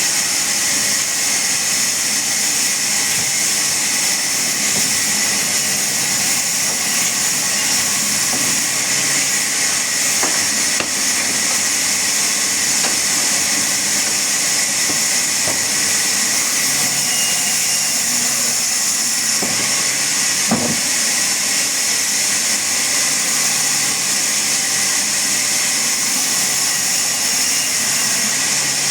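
Power saw running steadily, a constant loud hiss with a high whine, with one brief knock past the middle.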